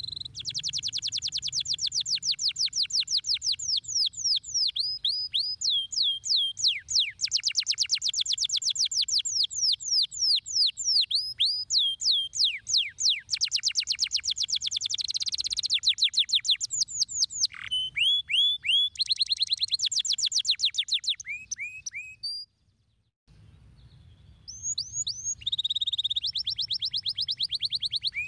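Domestic canary singing: a long song of fast trills, each a rapid run of repeated downward-sweeping high notes, switching from one trill type to the next. The song breaks off for about a second some two-thirds of the way through, then resumes.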